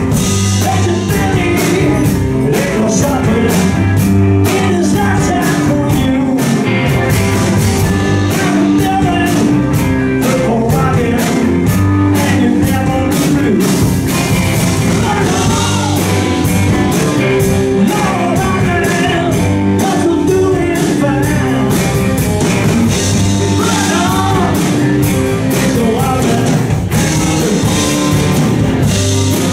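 Rock band playing live on two electric guitars, electric bass and drum kit, in a bluesy rock style, with a male lead singer's voice over it.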